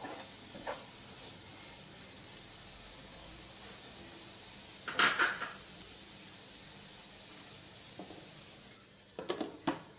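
Chopped vegetables sizzling steadily in a frying pan, with a short clink of a utensil about halfway through. Near the end the sizzling drops off and a few clatters follow.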